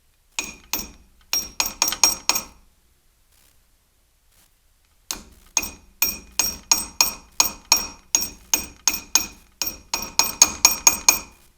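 Sharp, ringing metallic taps as the new band-type battery cable clamp is tapped down onto the battery post: a quick run of about seven taps, a short pause, then about twenty steady taps, about three a second.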